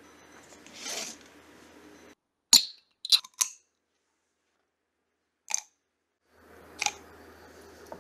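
Ice cubes dropped one by one into a tall glass, a handful of sharp clinks: three close together, then two more spaced apart.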